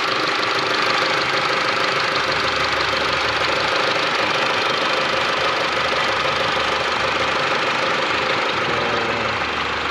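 2013 Mitsubishi L200's gasoline engine running steadily at idle. It runs smoothly now that a new crankshaft position sensor has cured its crank-but-no-start fault (code P0335).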